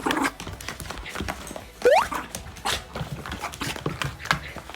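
Mame shiba (small Shiba Inu) making a short, sharp rising yelp about two seconds in, among quick knocks and scuffling clicks.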